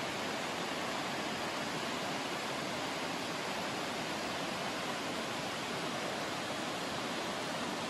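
The Radovna river rushing steadily through the gorge, an even, unbroken sound of fast-flowing water.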